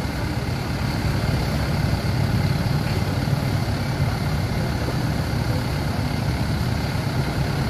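Steady low rumble of an idling engine, with street noise over it.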